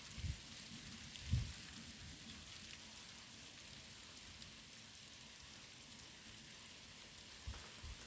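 Steady rain falling, an even hiss, with a couple of brief low thumps, the loudest about a second and a half in.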